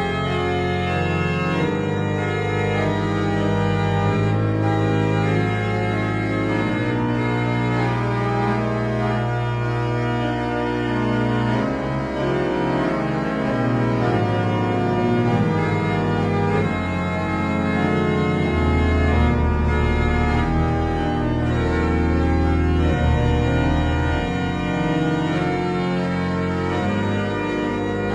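Music of slow, sustained organ chords, with the harmony and bass notes changing every few seconds.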